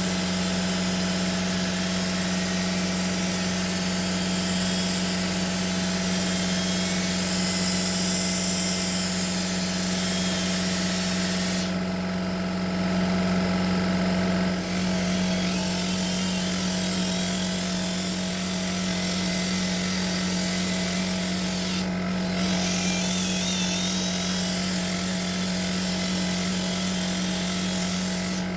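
Electric paint polisher running steadily while buffing car paint, its motor giving a constant hum. The high end drops away briefly about twelve seconds in.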